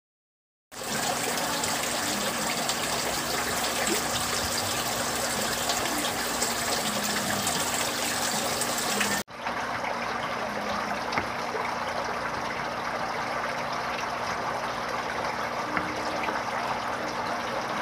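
Water running and splashing steadily into a tub holding juvenile crayfish. It starts after a moment of silence and breaks off sharply for an instant about nine seconds in before carrying on.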